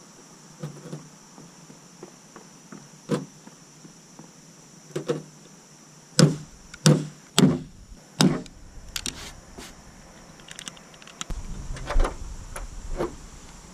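A string of sharp clunks and knocks from work on a car, about seven in all and most of them bunched together halfway through, over a steady high chirring of crickets. A low rumble comes in near the end.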